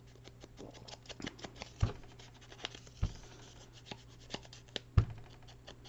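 Scissors snipping paper in a run of small clicks and scratches, with a few soft thumps from handling on the work table about two, three and five seconds in.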